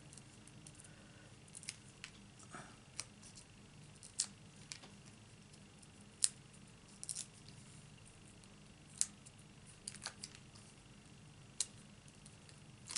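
Faint, scattered sharp clicks and ticks, a dozen or so, some in quick pairs: fingernails picking the backing paper off a tiny foam adhesive dimensional.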